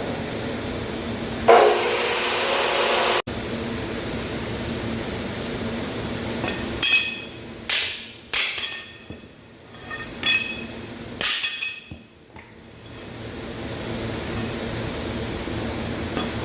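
About six hammer blows on a steel truck leaf spring being straightened, each strike sharp with a short metallic ring, spread over a few seconds in the second half. Earlier comes a loud hiss of about two seconds with a whistle rising in pitch, which stops abruptly.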